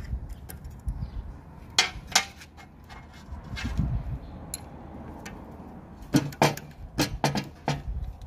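Sharp metallic clinks of steel parts and a thin metal rod knocking against a dismantled tractor hydraulic pump's valve linkage. Two clinks come about two seconds in, then a quick run of five near the end.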